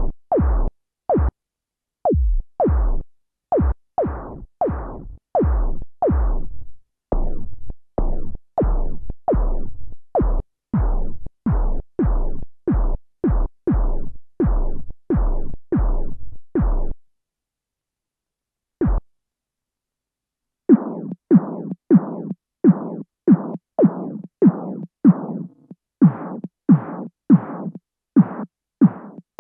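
Synthesized snare drum sound from Ableton Live's Operator synth, triggered over and over at about two hits a second while it is being shaped. Each hit is short with a quick downward pitch drop. The hits stop for a few seconds with one lone hit, then resume with a low steady tone sounding under them.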